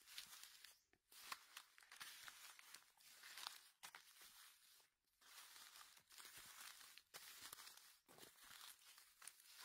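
Faint rustling and crunching of dry fallen oak leaves as they are pushed aside and stepped through, coming in short patches with brief pauses between them.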